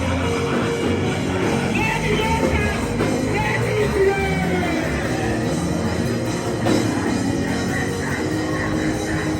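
Loud live church band music with sustained keyboard chords and drums, with some voices singing or crying out over it.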